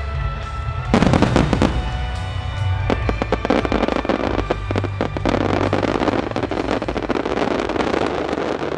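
Fireworks display: a sudden volley of sharp cracks about a second in, then dense, continuous crackling from many bursting shells until near the end, over music.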